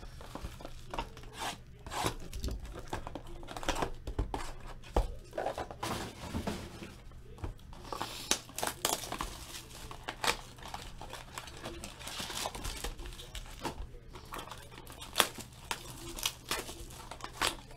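Plastic shrink-wrap being torn and crumpled off a sealed trading card box: irregular crinkling and crackling with scattered sharp rips.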